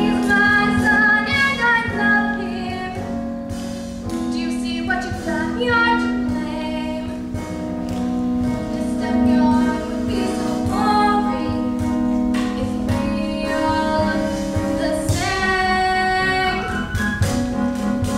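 Young voices singing a musical-theatre song in held, gliding notes over a steady instrumental accompaniment.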